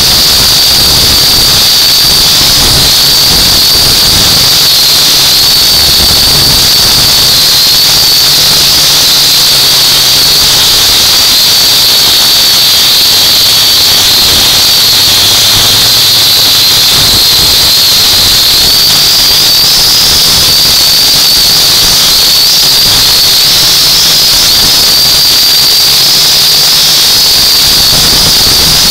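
Drone's motors and propellers whining loud and steady, the high pitch wavering slightly and rising a little about two-thirds of the way through, with wind buffeting the microphone in uneven low rumbles.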